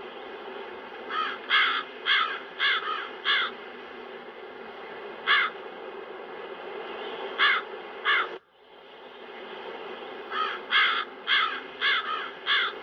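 Crows cawing: a run of about six harsh caws near the start, a few single and paired caws in the middle, and another run of about six near the end, over a steady wind sound.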